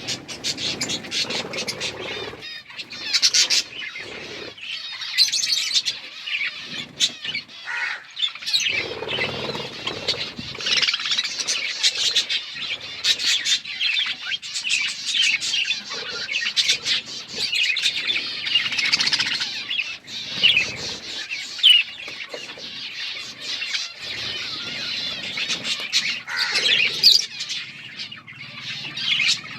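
A flock of small Australian parrots chirping and chattering continuously, many calls overlapping, with scattered sharp clicks and bouts of wing flutter.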